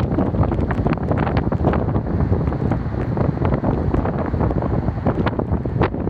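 Strong storm wind buffeting the phone's microphone: a loud, uneven, gusty rumble with constant crackling.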